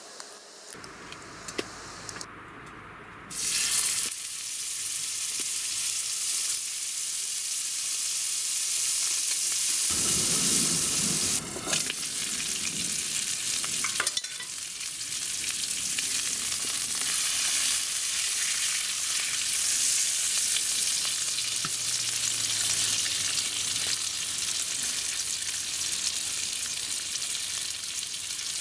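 Meat frying in butter in a 9-inch cast-iron skillet, with a loud steady sizzle that starts abruptly about three and a half seconds in. Before it there are a few small clicks and knocks.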